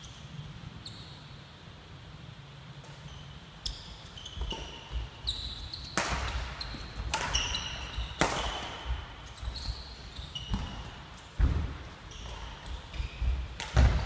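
Badminton rally on a wooden sports-hall floor: sharp cracks of rackets striking the shuttlecock, with thuds of feet landing and short squeaks of shoes on the court. The play begins after a few quieter seconds.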